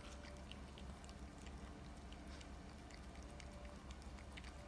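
Faint chewing and nibbling by a small Pomeranian-Chihuahua mix puppy gnawing a stick treat held in fingers: scattered soft clicks of teeth on the treat over a low room hum.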